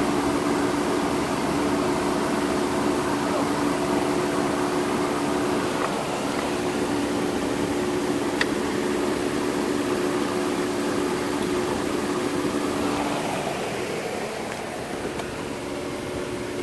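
Steady mechanical hum of the running Hyundai Sonata, heard inside its cabin, with one faint click about eight seconds in. The hum eases off a little near the end.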